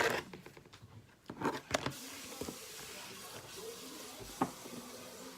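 A few sharp clicks and knocks of kitchen utensils against a frying pan: one right at the start, two about a second and a half in, one more near the end, over a faint steady hiss.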